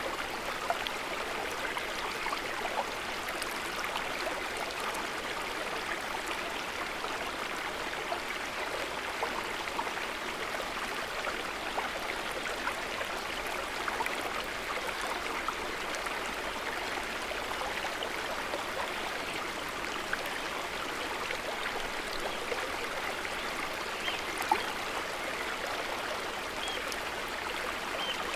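River water running over stones: a steady rush with small splashes and gurgles.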